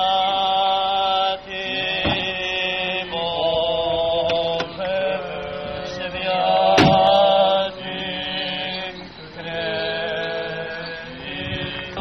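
Orthodox funeral chanting: sung in long, held notes, phrase after phrase. A brief sharp click cuts in about seven seconds in.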